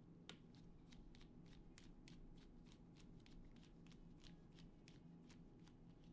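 Faint, quick ticks and clicks, several a second, of small drone parts and tools being handled up close during disassembly, over a low steady room hum.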